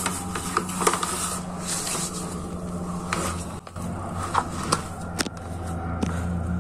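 Hands kneading soft chapati dough in a plastic basin: irregular squishing, scraping and small knocks against the basin, over a steady low hum.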